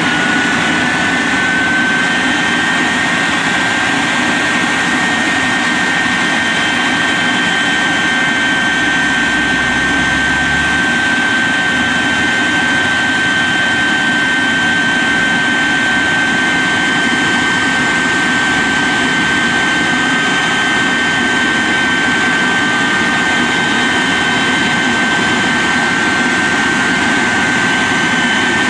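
Shockwave jet truck's three Pratt & Whitney J34 turbojet engines idling: a loud, steady rush with a high whine that rises slightly in the first couple of seconds and then holds steady.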